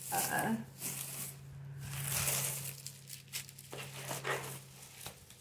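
Paper packaging crinkling and rustling in irregular bursts as items are unwrapped by hand.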